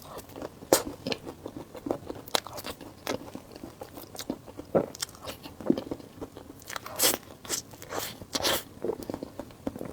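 Close-miked eating sounds: a person biting and crunching food, with irregular crisp crackles and chewing, a few bites louder than the rest.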